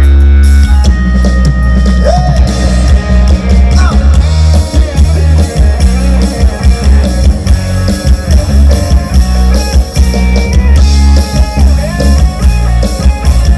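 Loud mor lam sing band music, mostly instrumental, with a driving drum beat and heavy bass.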